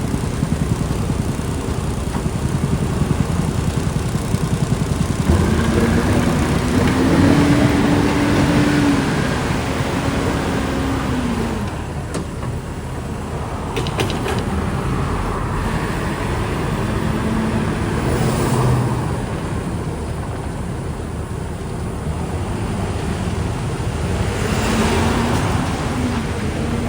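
Cat backhoe loader's diesel engine revving up, holding, and dropping back several times over a steady background of machine and road noise, with a couple of sharp knocks about halfway through.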